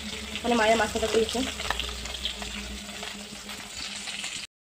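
Hot oil sizzling in a steel kadai on a gas stove, a steady hiss. A voice is heard briefly about a second in, and the sound cuts off suddenly near the end.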